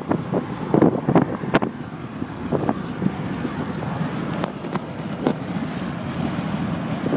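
Steady noise inside a car, with a quick string of sharp crackles and clicks in the first two seconds and a few single clicks later on.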